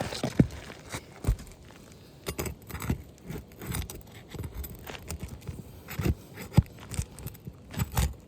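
Metal roof snake scraping and clicking under asphalt shingles as the nails holding them are worked loose, with several sharp knocks along the way.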